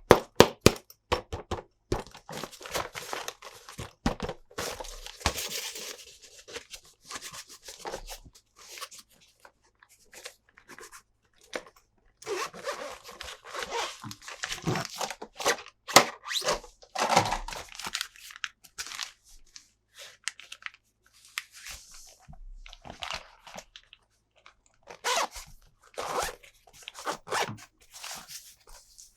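Hands handling a toy and its packaging: plastic and cardboard tearing and crinkling, with many irregular sharp clicks and knocks of hard plastic parts.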